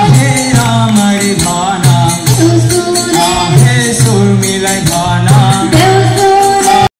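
Live folk song sung into microphones by male singers over a drum beat and jingling percussion, played loud through the stage speakers. The sound cuts out abruptly for a moment just before the end.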